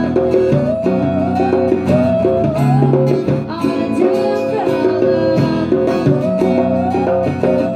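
Live acoustic trio playing a song: a woman singing into a microphone over an acoustic guitar and a djembe hand drum.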